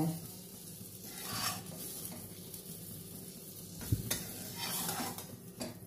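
Faint sizzle of hot oil from freshly fried pointed gourd (parwal) slices, with a few soft rustles and one light knock about four seconds in.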